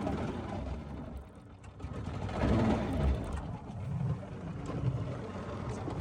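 Gasoline golf cart engine running under load on rough ground, its pitch falling about two and a half seconds in as the revs drop, with a low rumble throughout.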